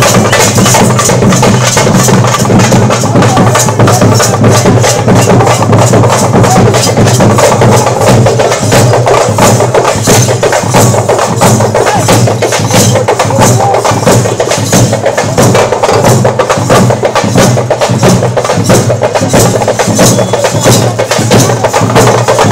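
Loud music driven by fast, steady percussion, a rapid even beat.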